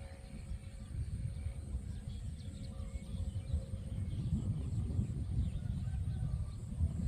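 Outdoor ambience: wind buffeting the microphone as an uneven low rumble, with faint bird chirps over it.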